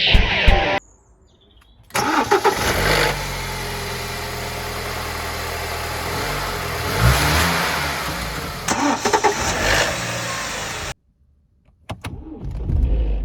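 BMW E88 1 Series' N43B20 four-cylinder petrol engine being started: it catches about two seconds in, runs with a brief rise in revs about seven seconds in, and cuts off; a second start begins near the end. The owner says a short rattle of the timing chain can clearly be heard on starting.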